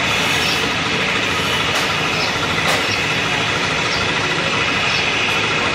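Jet airliner engines running, a steady, loud noise with a faint high whine.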